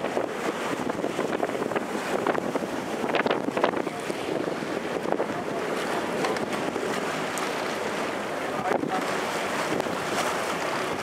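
Wind buffeting the microphone over the rush of choppy water from a moving boat, steady with scattered crackles.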